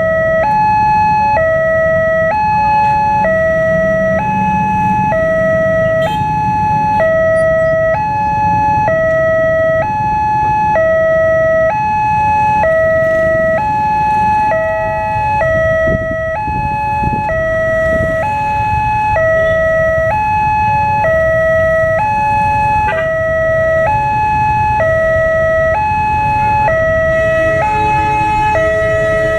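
Railway level-crossing warning siren sounding a two-tone alarm, switching between a high and a low note every half second or so, over a low rumble. Near the end a second, lower steady tone joins in.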